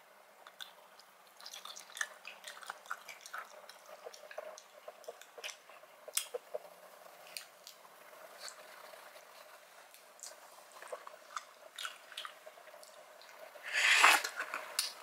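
Wet, squishy eating sounds of a seafood boil: small clicks and crackles as shrimp and mussel shells are picked apart by hand. Near the end comes a loud slurp as a mussel is sucked from its shell.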